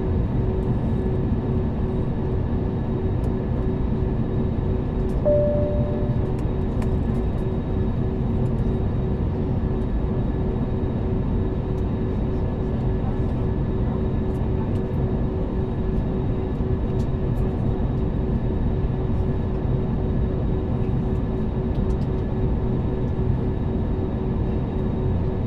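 Airliner cabin noise on the ground: a steady rumble of idling jet engines and air-conditioning hum with several steady tones, and a short single tone about five seconds in.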